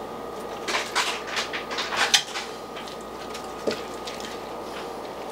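Fillet knife cutting fat off a slab of pork spare ribs, the blade scraping and knocking on a wooden cutting board in a quick run of strokes over the first couple of seconds, then one sharp tap. A steady faint hum runs underneath.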